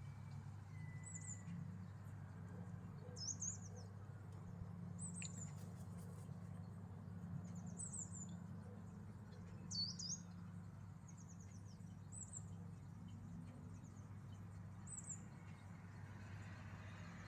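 Small bird chirping: short, high-pitched chirps that fall quickly in pitch, repeated every second or two, over a steady low hum.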